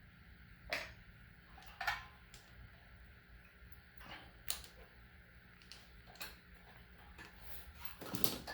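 Scattered light clicks and taps of hand work on a small engine's carburetor as the fuel hose is taken off, about half a dozen separate ticks over a faint background.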